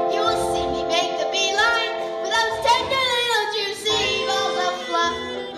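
A child singing a musical-theatre song: a long held note, then a phrase that slides downward about halfway through, followed by shorter notes.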